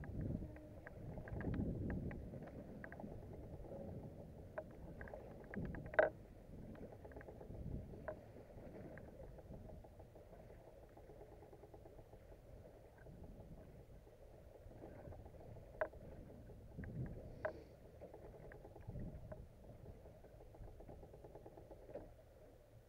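Water lapping against the hull of a small boat drifting at sea, a low steady rumble under it, with scattered light knocks and clicks from the boat and gear, the sharpest about six seconds in.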